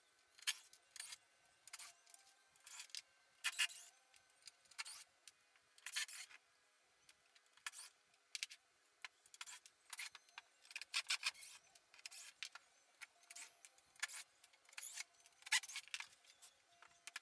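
Faint, scattered short metallic rattles and clinks, one or two a second. A cordless impact driver is backing screws out of the metal stringer brackets, and the loose brackets and screws are being handled and set down on the plywood.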